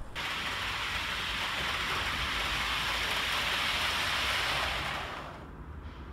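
OO gauge model HST train running fast on the track, its wheels on the rails making a steady rushing hiss that dies away about five seconds in.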